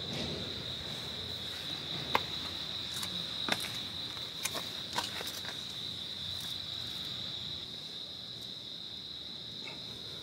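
Night insects, most likely crickets, chirring in a steady high-pitched trill. Several sharp clicks come between about two and five seconds in.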